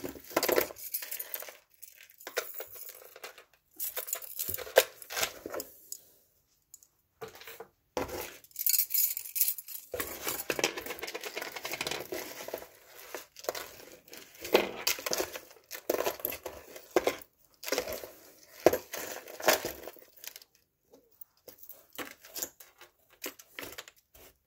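Gold-tone metal bangle bracelets clinking against each other and tapping down on a tabletop as they are handled, mixed with the crinkle and rustle of packaging as pieces are pulled out. It comes in irregular bursts with a couple of short pauses.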